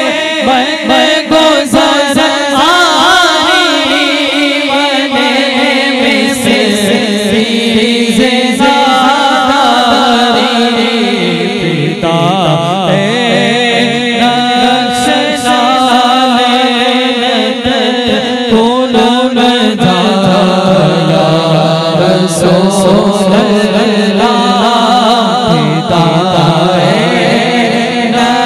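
A man singing a naat, an Urdu devotional poem, solo and unaccompanied into a microphone. He holds long notes and ornaments them with wavering, melismatic turns.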